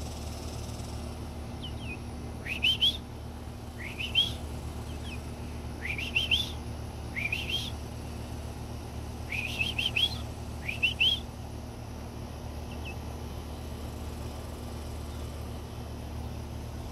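Nine-week-old Barbu d'Uccle bantam chicken peeping: a series of short, rising chirps, some in close pairs, over a steady low hum.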